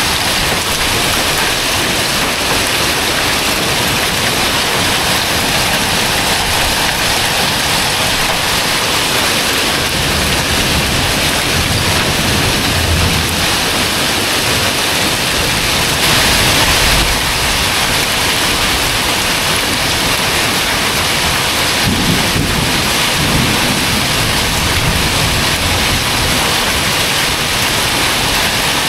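Heavy thunderstorm downpour: steady, loud rain pouring on pavement and parked vehicles. Low rumbles of thunder come about ten seconds in and again a little past twenty seconds, and the rain briefly surges louder about sixteen seconds in.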